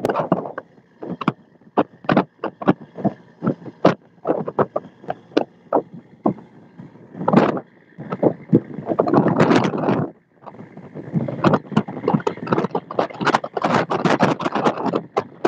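Sea water splashing and slapping against a fishing boat's hull as it pushes through choppy waves, in quick irregular bursts that grow denser in the second half. A faint steady high whine runs underneath.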